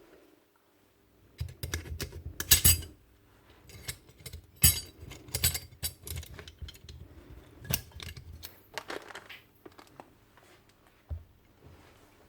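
Small metal parts of a Paslode IM350+ nail gun clicking and clinking irregularly as they are handled and fitted back together, with a cluster of knocks early on and scattered clicks after.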